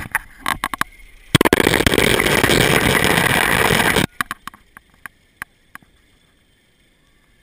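Zip-line trolley running on the steel cable: a loud whirring rattle that starts abruptly just over a second in and cuts off about four seconds in, with scattered sharp clicks before and after it.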